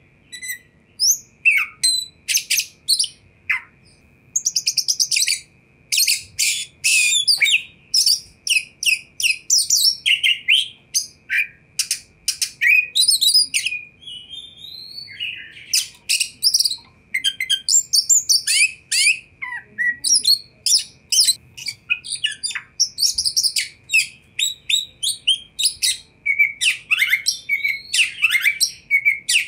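Oriental magpie-robin singing: a fast, varied stream of sharp chirps, whistles and rattling runs, broken by short pauses.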